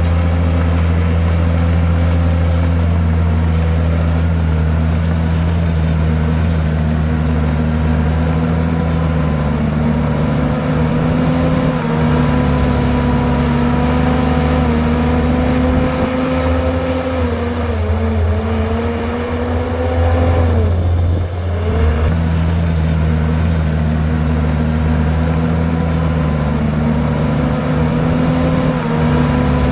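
Komatsu bulldozer's diesel engine running steadily and loud. Its pitch sags about two-thirds of the way through, dropping briefly and sharply before picking back up.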